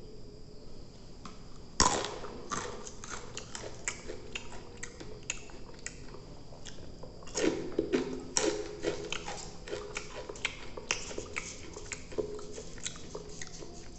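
Crunchy yellow Happy Bear stick snacks being bitten and chewed, with a sharp crack of a bite about two seconds in and another bite about seven and a half seconds in, and dense crunching between and after.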